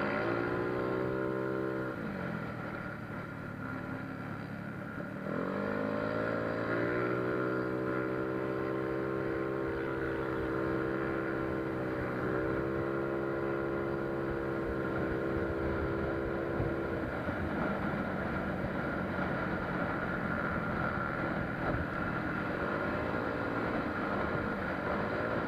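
Modified Yamaha Mio Soul scooter engine, bored out to 160cc with big valves and a 28 mm carb, running: the revs drop about two seconds in, climb again around five seconds and hold steady for a long stretch, then fall away near the end.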